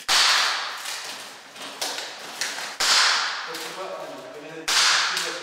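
Clear plastic wrapping being pulled off a framed painting in three sudden rustling swishes, each fading over about a second.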